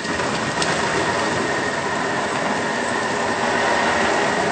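Thermomix blending at high speed, its blade churning a frozen cream and condensed-milk mixture into creamy ice cream: a loud, steady grinding rush over a high motor whine.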